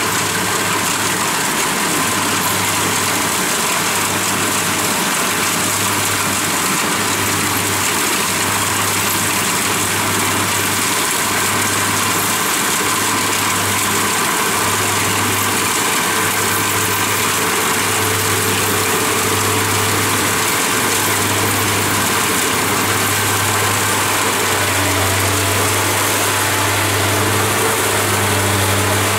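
Kubota DC70 Plus crawler combine harvester working as it cuts and threshes rice, its diesel engine running steadily under load with a constant low drone and a slight throb.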